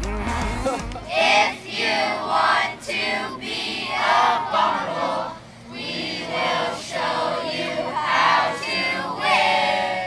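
A group of children chanting and singing a team cheer together in unison.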